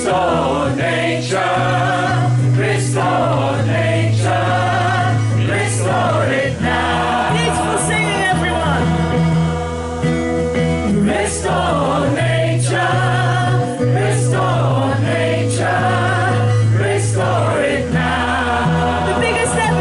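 A choir singing together, the voices moving over long held low notes that change every few seconds.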